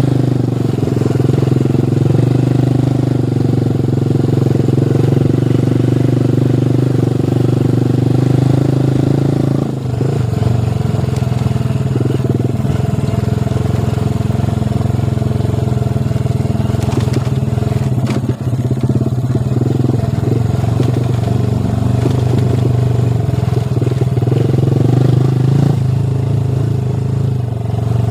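Motorcycle engine running steadily under way, with brief drops in engine sound about ten seconds in and again near the middle.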